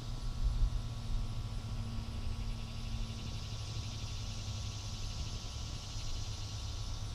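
Wind buffeting the camera microphone: a low rumble that gusts most strongly in the first second or so, then goes on more evenly, over a steady high hiss.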